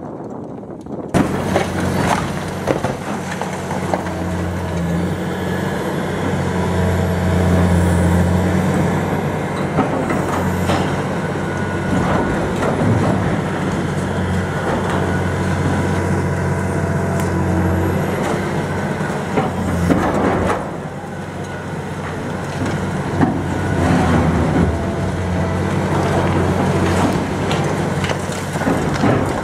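Liebherr R954C high-reach demolition excavator's diesel engine running steadily under load, while its crusher jaws break concrete, with scattered knocks and crashes of rubble falling.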